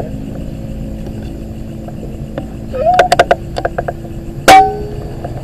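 A hunting rifle firing a single loud shot about four and a half seconds in, preceded by a quick run of sharp clicks, over a steady low hum.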